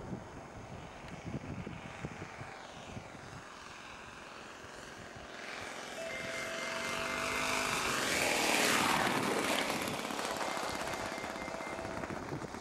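Radio-controlled model airplane's propeller and motor on a low landing approach. It grows louder as the plane comes in, is loudest as it passes close a little over halfway through, then fades as it touches down.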